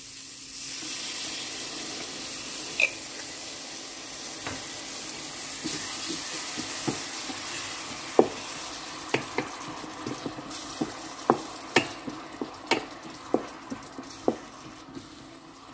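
Chopped shallots, garlic and ginger sizzling in hot oil in a nonstick electric cooking pot as Thai chili sauce is poured in and stirred with a wooden spatula. From about eight seconds in, the spatula knocks and scrapes against the pan in a string of sharp irregular taps.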